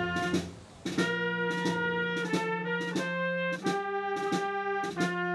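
Background music: an instrumental jazz-style tune with horns held over a steady drum-kit beat, dropping away briefly about half a second in.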